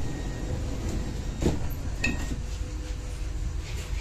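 Suburban electric train's powered sliding passenger door closing, shutting with a knock about a second and a half in, then a second click with a brief high tone. The train's steady low rumble runs underneath.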